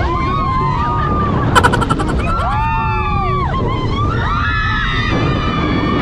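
Several riders on a speedboat thrill ride screaming together in long rising-and-falling shrieks, over the boat's engine and the rush of water and wind. About a second and a half in, a quick rattle of sharp pops cuts through briefly.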